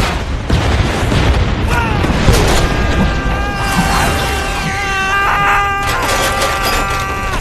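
Film sound mix of booming blasts and crashes with dramatic orchestral score; a sustained chord is held through the second half.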